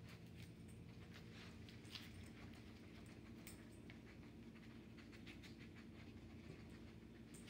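Faint sounds of a dog searching at close range: scattered light ticks and sniffing as it steps about and noses along the floor, over a low steady hum.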